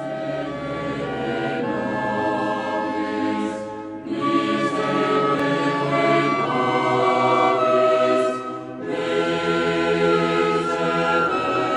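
Choir singing a mass setting in long, slow held phrases, the voices dipping briefly about four seconds in and again near nine seconds before the next phrase.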